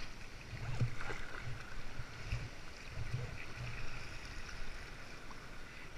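Sea water sloshing and splashing around a kayak as it is paddled, with soft low thuds about once a second.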